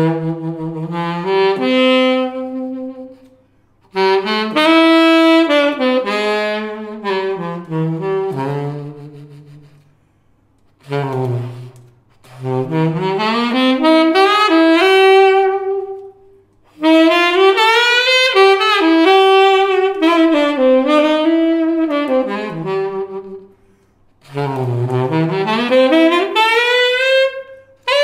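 Coleman CLC-551 tenor saxophone, black nickel-plated brass, played solo: a slow melodic line in several phrases separated by short breaths, with rising and falling slides between notes.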